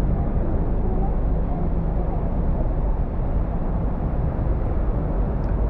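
Steady city-street ambience: a constant low rumble of road traffic.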